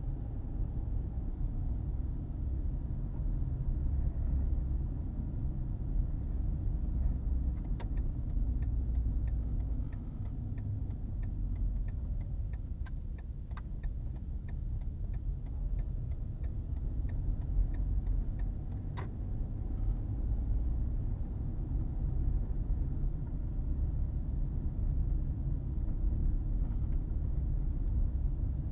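Low, steady road and engine rumble heard from inside a slowly driving car's cabin. For about ten seconds in the middle, a turn-signal indicator ticks evenly, about one and a half ticks a second, as the car turns at a junction, with a sharper click at the start and end of the run.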